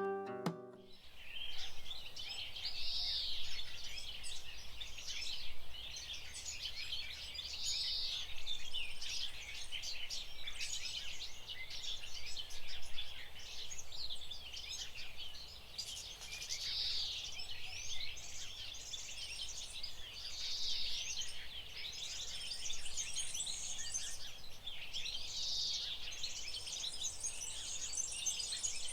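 Many small birds chirping and singing at once, a dense overlapping chorus of short high calls with a fuller warbling phrase every few seconds.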